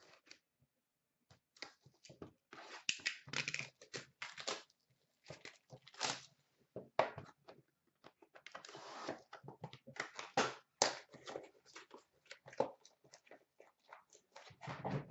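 Shrink-wrap being torn and crinkled off a Panini Prime hockey card box, then the cardboard box handled and opened: an irregular run of short rips, crackles and scrapes, with a longer scrape about nine seconds in.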